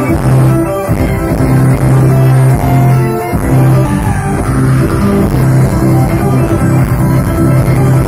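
Folk-rock band playing live and loud: fiddles and electric guitar over a pulsing, repeating bass line.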